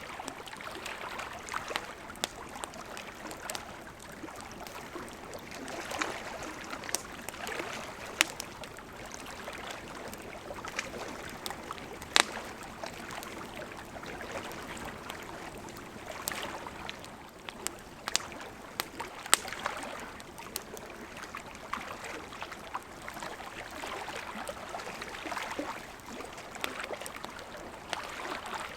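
Wood campfire crackling, with sharp pops scattered irregularly and a few much louder ones, over lake water lapping gently in slow swells.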